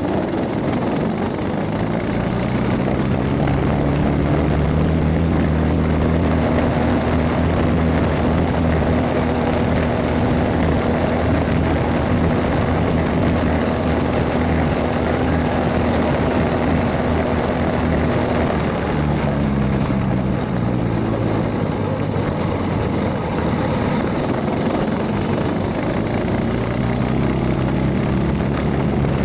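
Predator 212 single-cylinder engine on a mini bike, running hard under way: it revs up, holds steady at high revs, eases off about two-thirds through and picks back up near the end.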